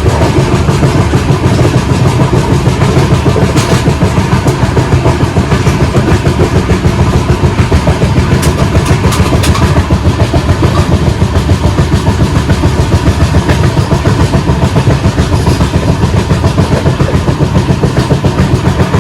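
Indian Railways LHB coach running with a flat wheel: a loud, fast, very even pounding beat over the rumble of the passing train, the sign of a flat spot worn on the wheel tread.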